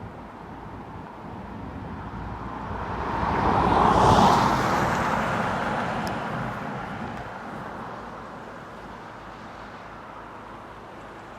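A vehicle passing by: its noise swells to a peak about four seconds in, then slowly fades away.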